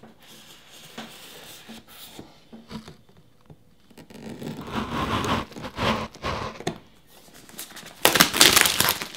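Knife slitting plastic shrink-wrap on a cardboard box, then the thin film crinkling and tearing as it is peeled away, loudest near the end.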